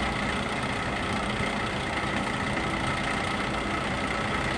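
LeBlond 3220-34 heavy-duty engine lathe running under power with the spindle turning, giving a steady, even hum with a faint high whine from the headstock gearing. It runs smoothly.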